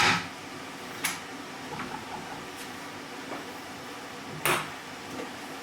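Kitchen clatter of cookware and utensils being handled and set down: a loud knock at the start, a sharp click about a second in, a few lighter clicks, then another loud knock about four and a half seconds in.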